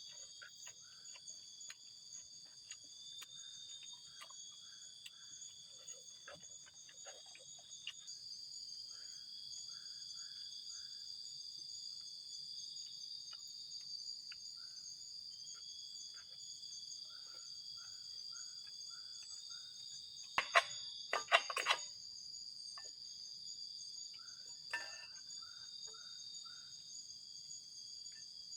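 Forest insects, crickets among them, keep up a steady high shrill chorus, with a short chirping call repeated in runs of four or five. Faint clicks and, about two-thirds through, a few sharp clicks sound over it.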